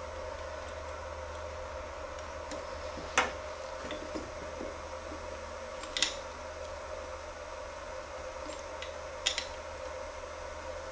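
Sharp metal clicks and knocks as an aluminium mold assembly is seated in the claws of a desktop injection molding machine and a hand tool is set against it. The loudest comes about three seconds in, then quick double clicks near six and nine seconds, over a steady machine hum.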